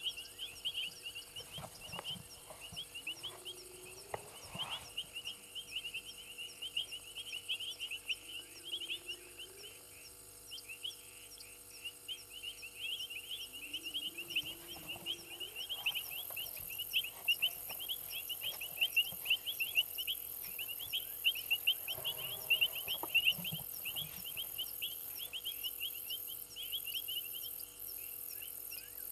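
Night chorus of frogs and insects: a dense, rapid trill of short chirps, with a few short low calls that rise in pitch in the first half and a steady high insect hiss that sets in about halfway.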